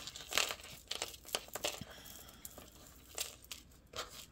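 Costume jewelry being handled: beads and a metal chain necklace clicking and rustling in scattered, irregular small knocks as they are picked up and sorted.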